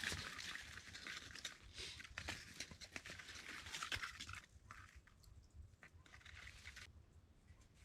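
Faint rustling with scattered small clicks and crunches, busier in the first half and growing sparser after about four seconds.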